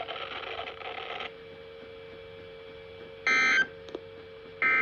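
Weather radio broadcast with an automated voice that stops about a second in. Then come two short, harsh bursts of Emergency Alert System SAME digital data tone about a second apart, the pattern of the end-of-message code. A faint steady hum runs underneath.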